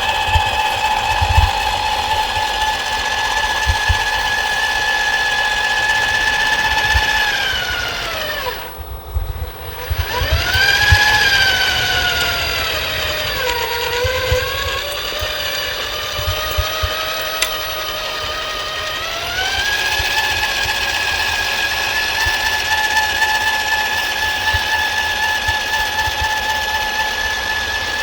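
The electric motor of a radio-controlled model machine whining steadily. It slows and almost stops about eight seconds in, then speeds up again, drops lower in pitch for several seconds, and picks back up to its steady whine near twenty seconds in. A low rattling and knocking runs underneath.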